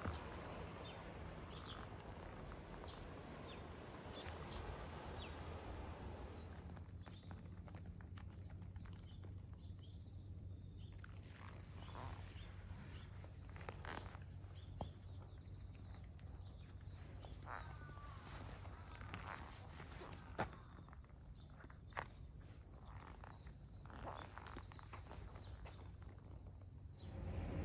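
Quiet outdoor ambience with a steady low hiss. From about six seconds in, an insect chirps at a high, constant pitch, repeating about once a second, with a few faint clicks between.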